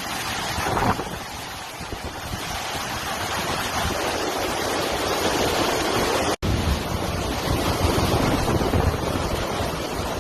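Hurricane wind blowing hard, a steady loud rushing noise with gusts buffeting the microphone. The sound cuts out completely for a split second about six seconds in.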